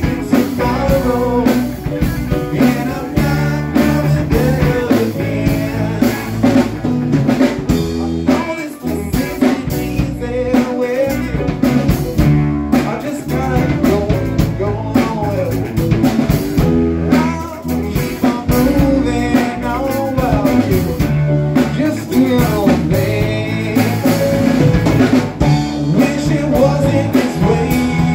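Live blues-rock band playing: drum kit, bass, electric guitar and keyboard under a wavering lead line, most likely a harmonica blown into a vocal mic.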